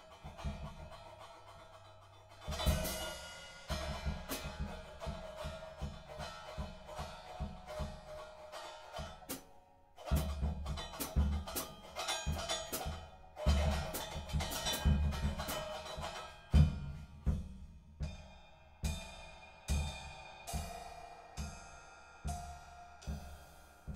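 Improvised jazz of piano played over drum and cymbal strikes, with no steady groove at first. The percussion thickens in the middle, then settles into strikes about one a second near the end.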